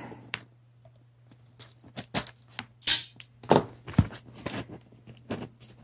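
A small taped cardboard box handled and turned over, with fingers picking and scratching at its clear tape seal. The result is a string of short, uneven scrapes and taps that start about a second and a half in, over a faint low steady hum.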